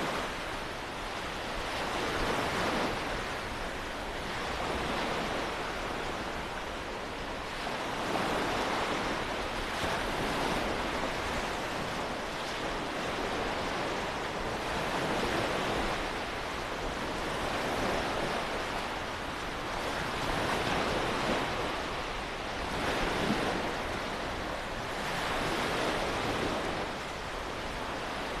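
Small waves breaking and washing up on a beach, swelling every two to three seconds, with wind rumbling on the microphone.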